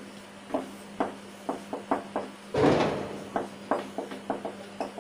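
Marker tapping and scraping on a white board in quick short strokes as handwriting is written, several ticks a second. One louder brushing noise comes about two and a half seconds in.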